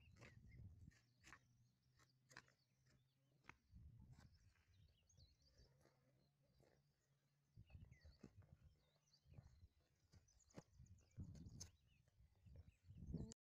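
Near silence: faint scraping and scattered clicks of a knife peeling fresh turmeric root, with a few low rumbles.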